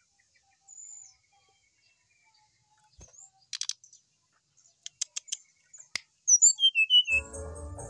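Brown-chested jungle flycatcher: a short high whistle about a second in, then light clicks and one knock as it moves about its cage. Near the end comes its loudest song phrase, high clear notes falling to lower ones, and background music comes in just before the end.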